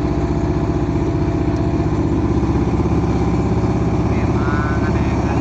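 Small boat engine running steadily with a fast, even pulse.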